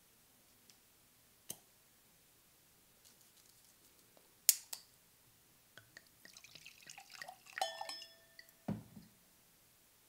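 Lever corkscrew turning in a glass wine bottle with small clicks, then the cork coming out with a sharp pop about four and a half seconds in, the loudest sound. White wine is then poured into a stemmed wine glass, a splashing trickle with the glass ringing briefly, followed by a dull thud near the end.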